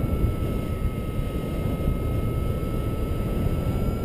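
Steady low rumble of wind rushing over the camera microphone of a paraglider in flight, with a faint steady high-pitched tone above it.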